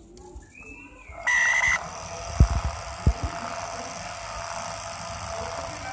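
Small DC hobby motors spinning the popsicle-stick rotors of a homemade bottle helicopter, switched on by connecting the battery: a short, loud, high tone about a second in, then a steady whir with two low thumps.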